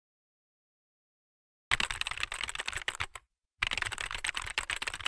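Rapid computer-keyboard typing clicks, starting a little under two seconds in, stopping briefly at about three seconds, then carrying on.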